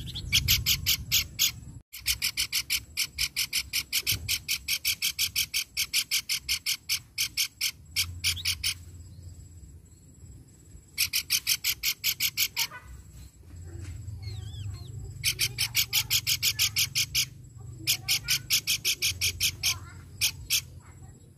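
Pelanduk bukit, a babbler, calling in long runs of rapid, evenly repeated sharp notes, several a second. The runs come in about five bursts with short pauses between them, the longest lasting about seven seconds.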